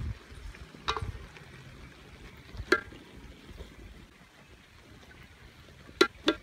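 Metal ladle stirring a wet cassava curry in a metal wok, with a low sloshing of the liquid. The ladle strikes the pan with sharp ringing clinks, once about a second in, again near three seconds, and twice in quick succession near the end, the loudest.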